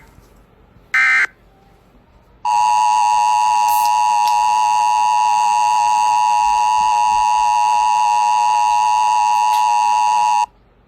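The last of three short bursts of Emergency Alert System digital header data, a brief screechy data chirp, about a second in. Then the EAS attention signal: a steady two-tone 853 and 960 Hz alarm tone held for about eight seconds, which cuts off sharply.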